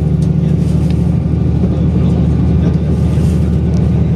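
Diesel limited-express railcar running at speed, heard from inside the passenger cabin: a steady, low engine drone with running noise from the wheels and rails.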